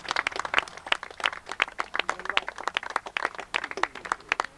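A small group of people clapping: scattered applause of irregular, sharp claps.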